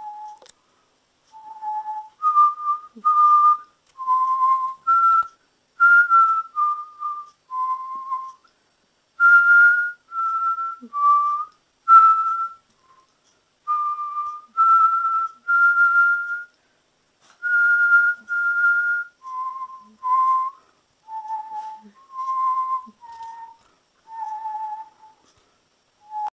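A person whistling a slow tune, one clear note at a time with short gaps between, the pitch stepping up through the middle and back down near the end.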